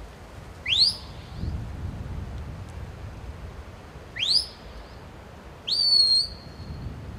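Sheepdog handler's whistle commands: two short rising whistles, then a third that rises and holds a steady high note for nearly a second.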